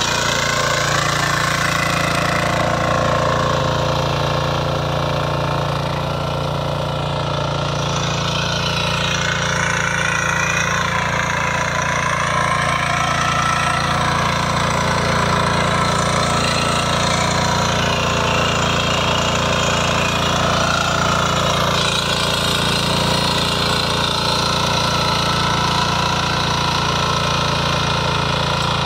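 Shrachi power weeder's single-cylinder engine running steadily under load while its rotary tines churn through the soil, with a pounding beat.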